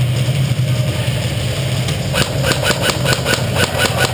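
Airsoft electric gun firing full-auto: a rapid, even run of sharp clicks, about seven a second, starting about halfway through. Under it runs a steady low hum.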